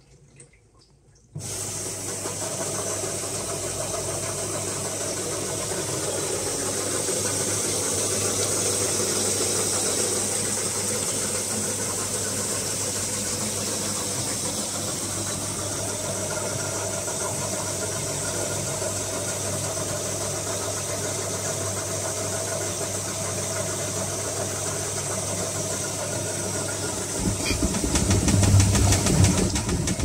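Whirlpool AWE7516 top-loader washing machine in its final spin: the drum motor drives the drum through the belt at high speed, a steady running sound with a low hum and a bright hiss. It begins abruptly about a second in, and near the end a low rumble from the tub grows louder.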